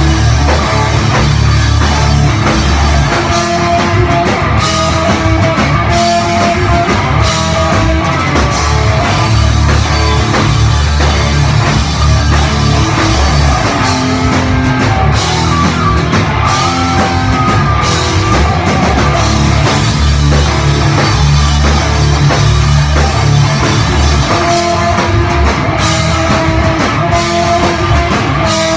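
Rock band playing live and loud: electric guitars and drum kit, with a heavy, steady low end.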